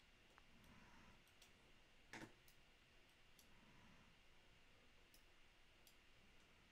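Near silence: faint room tone with a few scattered faint clicks at a computer desk, and one louder click about two seconds in.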